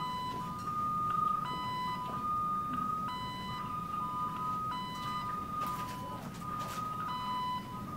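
Electronic alarm beeping in two alternating tones, a lower and a slightly higher note each held for under a second, repeating steadily over a low rumbling background.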